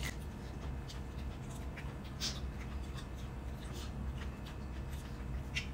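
Close-up eating sounds: soup slurped from a spoon, then chewing, with small wet mouth clicks scattered through it; the sharpest come about two seconds in and near the end.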